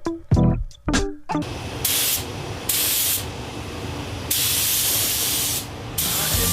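Compressed air hissing from an air gun in four bursts, the longest about a second and a half, over a low steady background. Music plays for about the first second.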